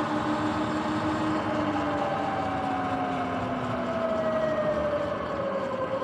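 Sur-Ron X electric dirt bike under way: a thin motor and drivetrain whine over tyre and wind noise, the whine sliding slowly down in pitch as the bike eases off.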